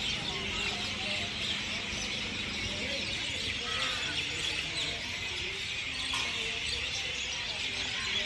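A dense chorus of many birds chirping in the trees, with faint voices of people underneath.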